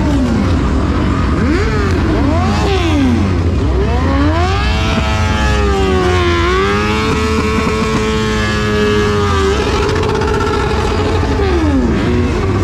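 Vehicle engines revving: several quick revs that climb and drop in the first few seconds, then one long rev held high from about four seconds in until near ten seconds, over a steady low rumble.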